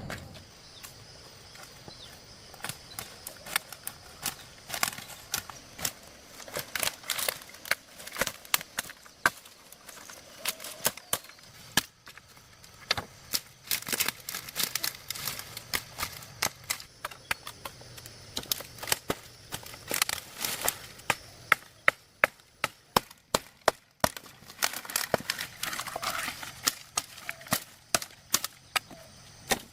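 Irregular series of sharp knocks and chops of a hand tool striking wood or bamboo, some in quick runs of several strokes.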